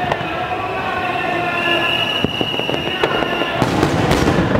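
A train's wheels squealing in several steady high tones, strongest in the middle, with the sharp cracks of fireworks shells bursting over it.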